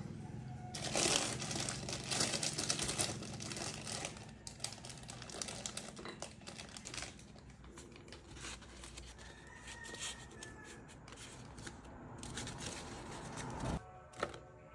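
Paper coffee filter crinkling and rustling as it is folded and handled, in irregular bursts that are loudest in the first few seconds. A single knock comes near the end.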